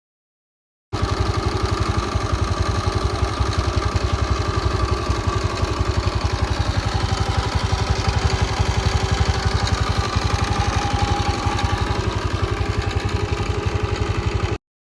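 TVS Jupiter scooter engine running steadily with a fast, even pulsing clatter, the clutch noise that the video presents as a problem. It starts about a second in and cuts off suddenly near the end.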